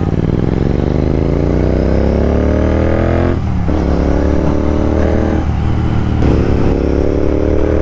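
Royal Enfield Continental GT 650's parallel-twin engine accelerating on an open road. Its note rises in pitch, drops briefly as it shifts up about three and a half seconds in and twice more a few seconds later, then climbs again after each shift.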